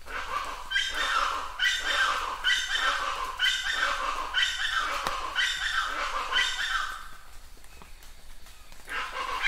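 An animal calling over and over, about once every 0.8 seconds, each short call falling in pitch. The calls pause for about two seconds and start again near the end.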